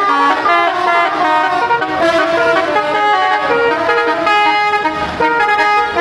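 Bus telolet horns, several at once, playing overlapping tunes of short, quickly changing notes.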